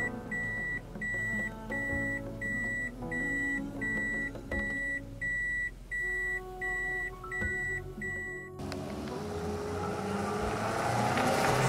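A high electronic beep, one pitch, repeating about once every 0.7 seconds, roughly a dozen times, over soft sustained background music. The beeping stops a little past two-thirds of the way through, and the music then swells with a rising rush of noise.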